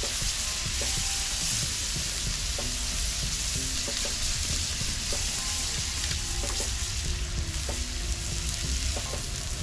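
Striped bass fillets and shishito peppers sizzling steadily on a hot flat-top griddle, searing in oil and butter.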